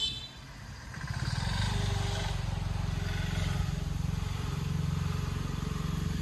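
An engine running steadily with a low, pulsing rumble, growing louder about a second in and then holding.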